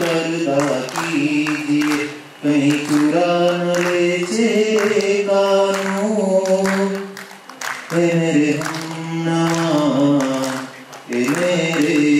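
A voice singing unaccompanied, holding long, sliding notes in phrases, with short pauses between phrases about two, seven and eleven seconds in.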